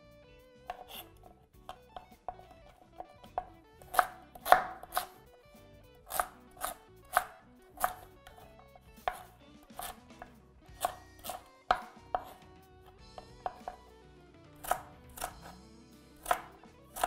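Chef's knife chopping Hokkaido pumpkin into small cubes on a wooden cutting board: a run of sharp, irregular knocks of the blade onto the board, loudest about four to five seconds in.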